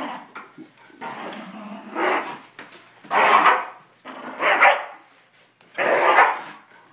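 Dogs barking and growling in play over a toy: about five short, loud barks roughly a second apart, with lower growling between them.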